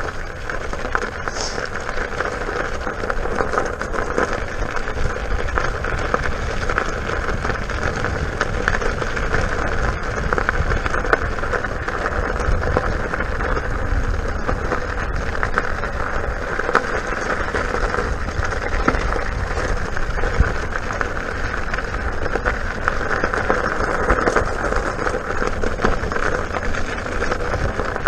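King Song S18 electric unicycle's 18-inch tyre rolling steadily over a loose gravel track, a continuous gritty rolling noise, with low wind rumble on the microphone.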